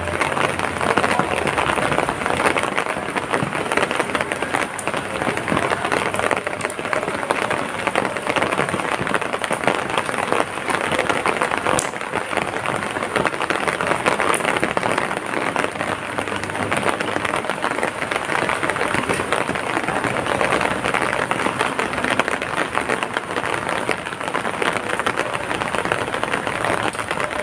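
Heavy rain falling steadily: a dense, even hiss of many drops with no change in strength.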